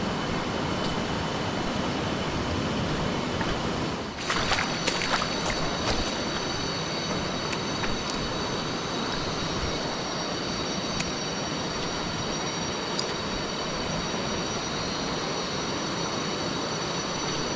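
Steady rushing of water over river rapids. About four seconds in it briefly dips, with a few clicks, and a steady high-pitched whine joins above the water noise and holds on.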